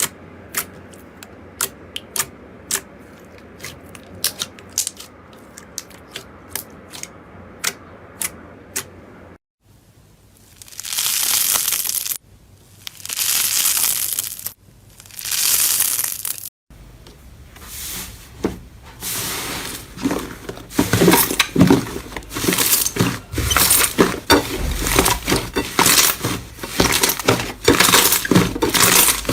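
Slime being handled and squeezed: first a run of sharp separate clicks and pops, then three long hissing swells, then dense crackling and clicking, as crunchy slime gives.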